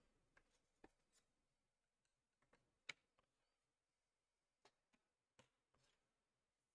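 Near silence broken by a scattered handful of faint clicks and taps, the loudest about three seconds in, from hands handling trading-card boxes and packs on a table.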